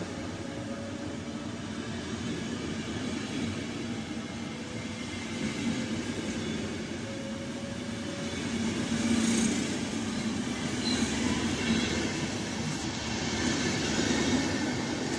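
RegioJet passenger coaches rolling past along the platform as the train pulls out of the station, the wheels rumbling on the rails. It gets louder in the second half.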